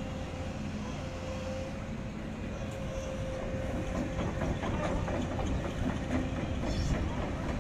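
Hydraulic excavator working on a concrete building: a steady engine drone with a held tone, joined from about four seconds in by scattered knocks and clatter of concrete being broken.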